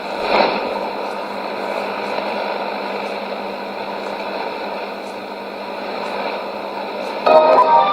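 Shortwave radio static: a steady hiss and noise on the 9920 kHz signal through a Sony ICF-2001D receiver, with a brief swell about half a second in. Near the end, music from the broadcast comes in, louder, over the noise.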